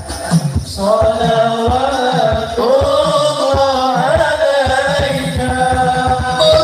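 Amplified male voices singing an Islamic devotional song (sholawat) in long, gliding melodic lines over a steady drum beat.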